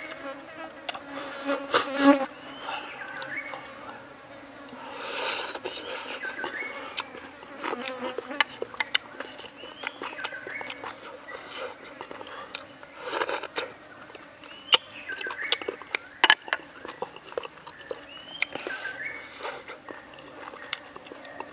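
Steady buzzing of flying insects, with short rising chirps repeating every few seconds. Sharp clicks of chopsticks against the metal pan stand out now and then.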